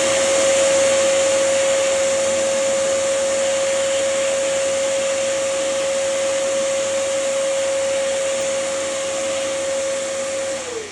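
Vacuum cleaner with a soft brush attachment running steadily with a high motor whine, then switched off near the end, its pitch falling as the motor spins down.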